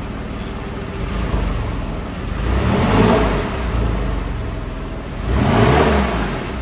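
Porsche 997 Carrera flat-six idling through a Soul Performance exhaust, revved twice, about three seconds in and again near the end.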